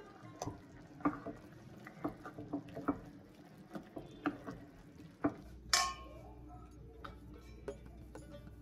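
Wooden spatula stirring thick chickpea curry in a kadai, with irregular knocks and scrapes against the pan. About halfway through, the stirring stops and there is a single sharp click, then a few faint taps.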